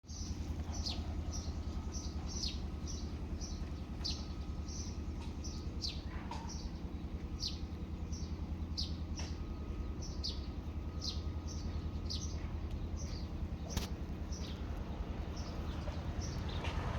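A bird chirping over and over, short high falling chirps about twice a second, over a steady low hum. A single sharp click about fourteen seconds in.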